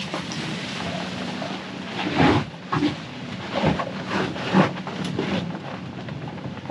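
Electric SUV driving over a loose gravel road: tyres crunching the gravel and stones knocking against the underbody, with several louder crunches and a faint steady low hum underneath.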